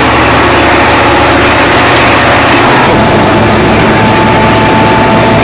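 Coach bus engine running steadily with road noise, heard inside the passenger cabin. The sound shifts about three seconds in, and a steady high whine joins after that.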